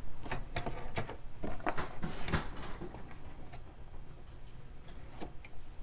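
Patterned cardstock paper being handled and lined up on a paper trimmer: light rustles, taps and clicks, busier in the first half.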